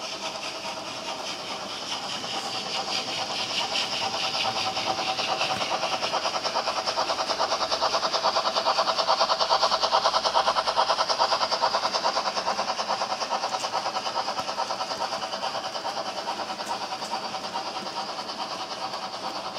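Model train running past: a rapid clatter of the tank wagons' wheels on the track over a steady whine, loudest about halfway through as the model steam locomotive goes by.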